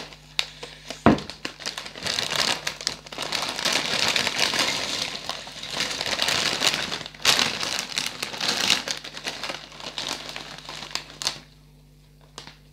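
A plate is set down with one sharp knock about a second in, then a crinkling plastic chip bag rustles in several surges as potato chips are tipped out of it onto the plate.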